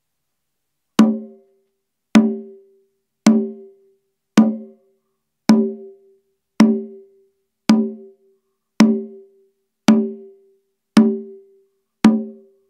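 Conga drum standing flat on short indoor-outdoor carpet, struck with eleven single hand strokes about a second apart, each ringing briefly. Flat on carpet, the drum's sound is one the player judges poor: carpet tends to suck the life out of a drum.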